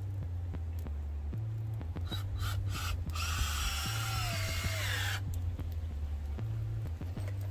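Power drill run in three short pulses about two seconds in, then run for about two seconds, its whine falling in pitch before it stops. Electronic background music with a steady bass line plays under it.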